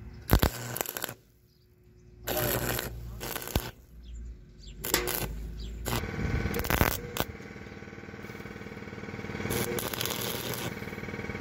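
Stick-welding arc crackling and spitting in several short bursts, each a few seconds at most, as an electrode tacks small steel pieces onto a wire handle. A steady hum sets in about halfway.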